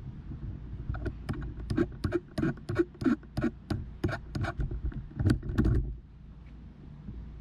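A quick run of sharp clicks and knocks, about four a second, starting about a second in and stopping about six seconds in, over a low steady rumble.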